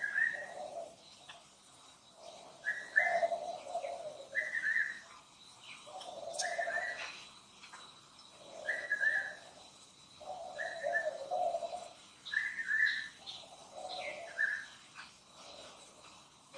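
A bird calling over and over, each call a short higher note followed by a longer lower note, repeating about every two seconds.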